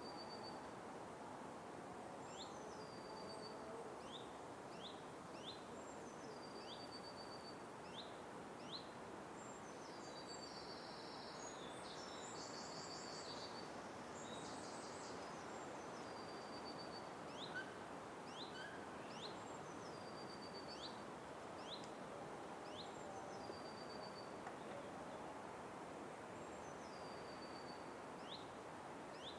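Night-time forest ambience: a steady faint hiss under a high-pitched call that repeats about every two seconds, each a quick upward chirp followed by a short held note. A buzzy, trilling high sound joins briefly around the middle.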